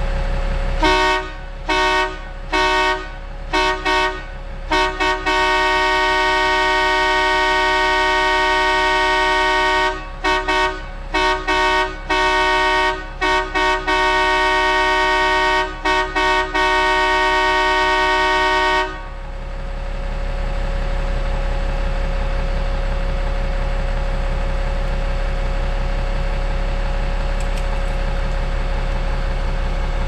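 Hough H80B wheel loader's air horn blowing loud in a string of short toots and long blasts, the longest about five seconds, then stopping for good about two-thirds of the way in. The horn is working again after its airline was purged. The loader's International DT466 diesel idles steadily underneath and runs on alone once the horn stops.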